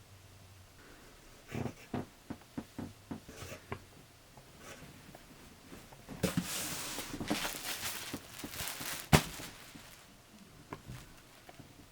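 Handling of packaging and box contents during an unboxing: scattered clicks and taps, then a few seconds of rustling and crinkling, and one sharp knock about nine seconds in, the loudest sound.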